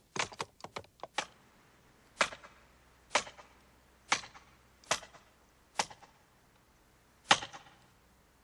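A series of sharp clicks: a quick cluster in the first second or so, then single clicks about once a second.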